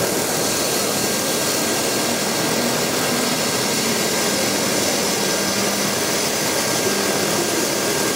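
Fiber laser cutting machine cutting sheet metal: a steady rushing hiss from the cutting head's gas jet, with a faint high tone held throughout.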